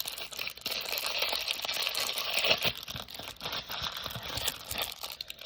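Crinkly wrapping being crumpled and pulled apart by hand while a small packaged toy is unwrapped: a dense, irregular run of crackles throughout.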